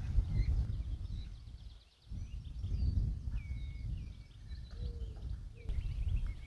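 Wild birds calling: many short chirps and a few longer whistled notes, over a low, uneven rumble that drops away briefly about two seconds in.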